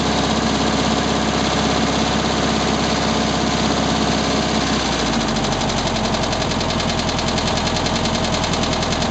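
1967 VW Beetle's air-cooled flat-four engine running with the knocking noise its owner is showing. About five seconds in, the running note changes and a rapid, even clatter comes to the fore.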